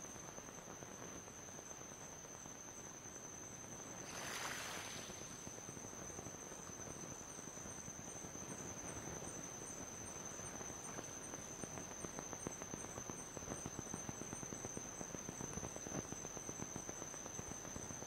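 Insects trilling at dusk in one steady high tone, with a faint pulsing just above it. A short rush of noise comes about four seconds in, and a faint crackling grows through the second half.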